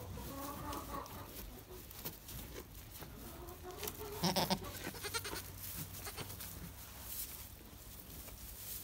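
Young goat kids bleating: a few short calls in the first second or so, then a louder bleat about four seconds in. Light rustling and clicks in the straw bedding follow.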